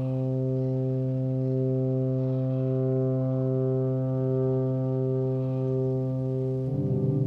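Ambient electronic music from synth loops played back on an Elektron Digitakt: a sustained low drone chord with a tone above it that swells and fades. Near the end a new loop enters with a fast fluttering pulse.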